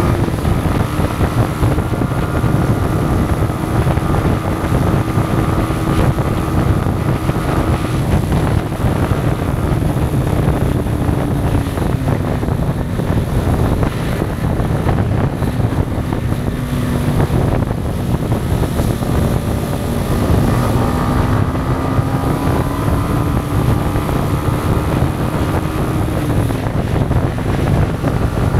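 Yamaha MT-125's single-cylinder four-stroke engine running under way, its note climbing slowly and dipping about twelve seconds in and again near the end, with wind buffeting the action-camera microphone.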